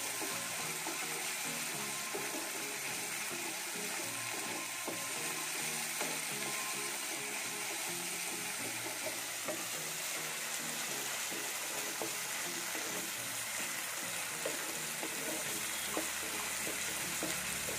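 Masala paste of onion, ginger-garlic and green chillies frying and sizzling in an iron kadai while a wooden spatula stirs it, with a few sharp clicks of the spatula against the pan.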